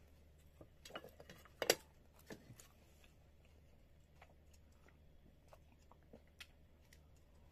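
A few light clinks and knocks of cutlery and crockery at the table, the loudest about a second and a half in, then scattered faint clicks over a low steady hum.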